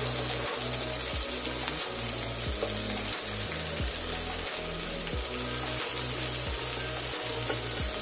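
Chicken kebab patties sizzling steadily as they shallow-fry in oil in a stainless steel pan, with background music playing underneath.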